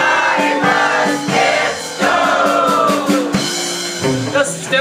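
A live band playing, with several voices singing together over sustained instrument notes.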